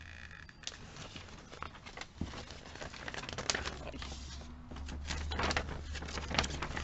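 Paper catalogue pages rustling and crinkling as they are handled and flipped, in many irregular short crackles, over a low steady hum.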